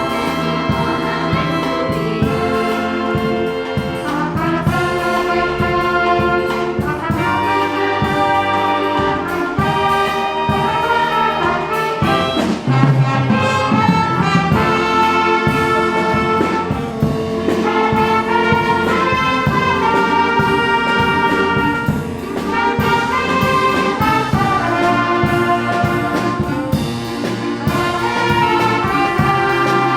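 Music from a brass-led ensemble, with trumpet- and trombone-like notes held over a steady beat.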